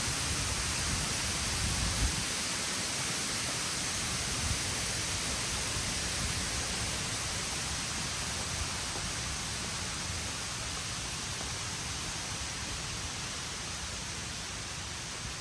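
Steady rushing hiss of waterfall water, slowly growing fainter.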